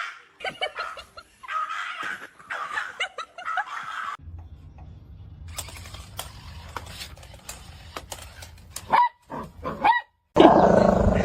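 A dog barking and whining, with short high calls near the end.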